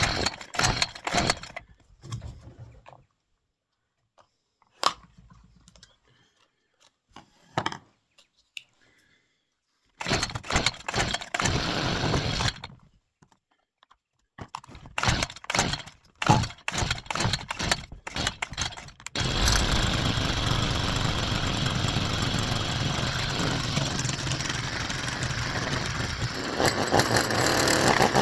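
Stihl strimmer being pull-started, several short rattling attempts with pauses between, then the engine catches about 19 seconds in and keeps running steadily, its carburettor adjustment screws just turned.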